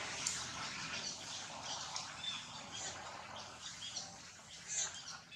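Scattered short, high-pitched animal chirps over a steady outdoor hiss.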